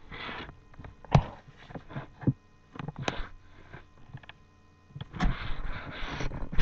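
Handling noise from a webcam being moved about: several sharp knocks and bumps with rustling in between, over a faint steady electrical hum.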